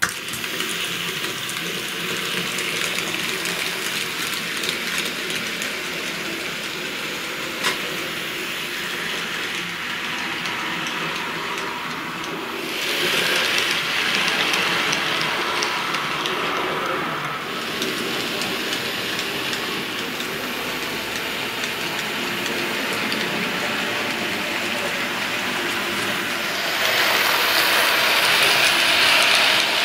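TT-gauge model steam tank locomotive (BR 86) and its freight wagons running on the track, a steady whirr of the motor and rolling wheels. It gets louder as the train passes close, about 13 seconds in for a few seconds and again near the end, with a single sharp click about 8 seconds in.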